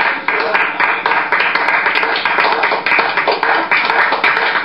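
Applause: a dense, steady patter of many hands clapping.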